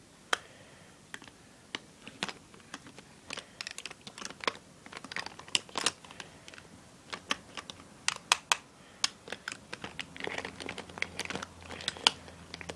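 Hands rummaging through a makeup bag: plastic cosmetic cases and compacts clicking and clacking against each other in irregular sharp taps, with a crinkly rustle of the bag near the end.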